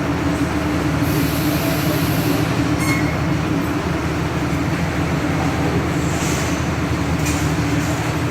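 Vishal 495 combine harvester running, with a steady, loud engine drone and machinery rattle. A brief high hiss comes in about a second in.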